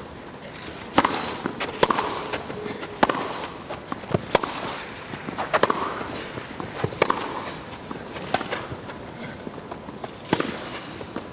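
Tennis rally on a grass court: racket strings hitting the ball about every second and a half, about eight sharp hits in all, with softer ball bounces and footfalls between them.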